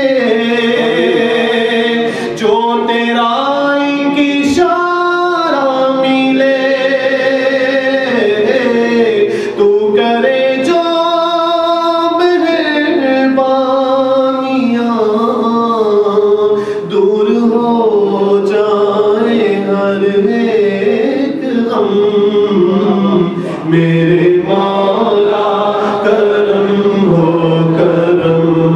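A man singing an Urdu devotional kalaam (naat-style supplication) into a handheld microphone, in long held notes that waver and bend in pitch.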